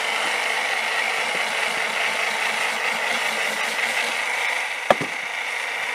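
Handheld immersion blender running steadily in a jar, blending hummus: a continuous motor whine with a rattle. One sharp click about five seconds in.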